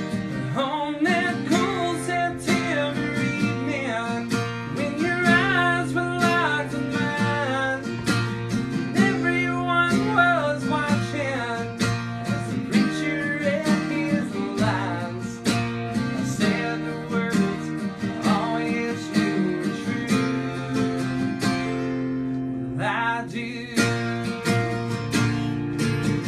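Acoustic guitar strummed, with a voice singing a song over it.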